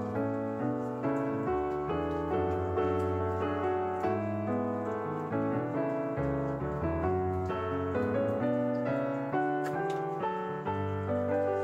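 Background piano music: a gentle run of notes, each struck and fading.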